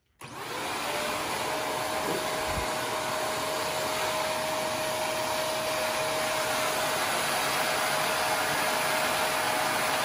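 Shark Navigator Lift-Away upright vacuum switched on: the motor spins up with a rising whine just after the start, then runs steadily at full suction, air rushing through the hose and crevice tool.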